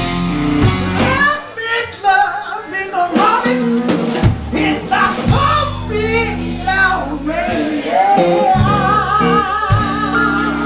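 Live rock band playing: a male vocalist singing over electric bass, guitar and a drum kit.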